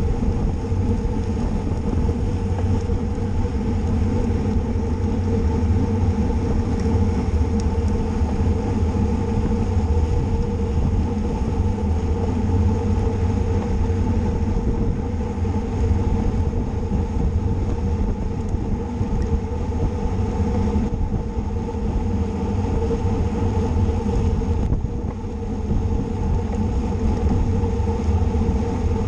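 Steady rumble of wind and road noise from a road bicycle being ridden, as picked up by a camera microphone riding along, with a faint steady hum underneath.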